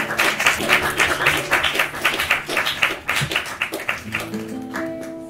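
Acoustic guitar, ukulele and bass strumming a quick rhythm, the song's last bars. About four seconds in the strumming stops and a final chord is left to ring and fade.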